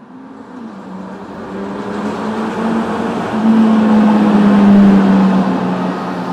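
A vehicle passes, its noise swelling to a peak about five seconds in and then easing off, with a steady hum running through it.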